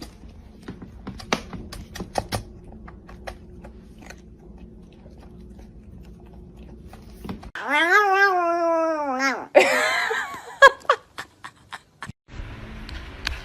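A cat's long drawn-out meow, its pitch rising and then falling, after several seconds of faint scattered taps and clicks. A short noisy burst and a few clicks follow it.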